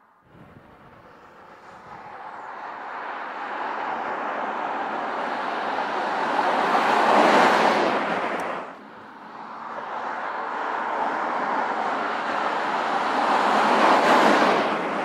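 Porsche Cayenne Turbo SUV driving past twice, each pass a rising rush of engine and road noise that peaks and falls away. The first pass cuts off sharply about nine seconds in.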